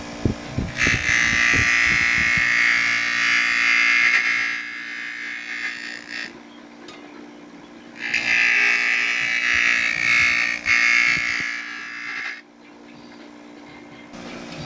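Bench grinding machine with a brush wheel running with a steady hum, the brush pressed twice against the subwoofer's center cone for about five and four seconds, giving a loud scrubbing noise as it strips old glue off to leave the surface clean for re-gluing.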